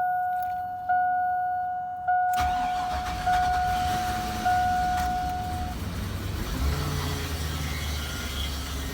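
A truck's dashboard warning chime dings about once a second; a little over two seconds in the engine cranks and catches on its first start after a rebuild, then runs steadily while the chime goes on a few more seconds and stops.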